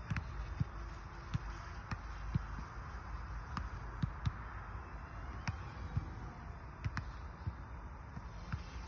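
Wind rumbling on the microphone, with irregular light clicks and knocks every half second to second or so.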